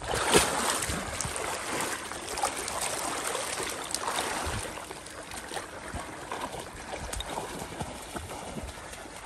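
A dog splashing and wading through shallow, muddy marsh water on a retrieve. It is loudest in the first half and grows quieter as the dog pushes off into the reeds.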